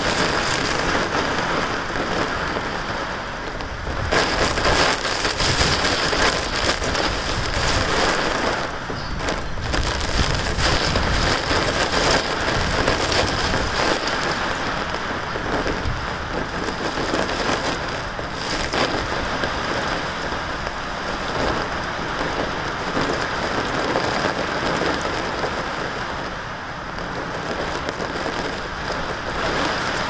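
Heavy cyclone rain pouring on a roof, a dense steady hiss that swells and eases in waves, heaviest from about four to thirteen seconds in.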